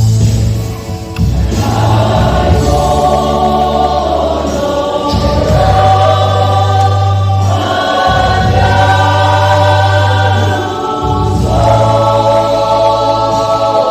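Church choir singing a hymn in harmony over an instrumental accompaniment with sustained low bass notes; the voices come in about a second and a half in after a short instrumental lead-in.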